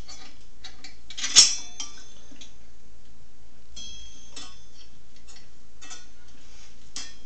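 A steel circular saw blade clinks and scrapes against the arbor and table-saw parts as it is slid onto the arbor by hand. A sharp metallic clink about a second and a half in leaves the blade briefly ringing, a second ringing clink comes about four seconds in, and lighter clinks follow near the end.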